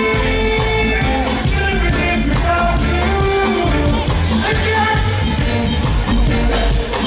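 A man singing a pop ballad cover live over a band with a steady drum beat.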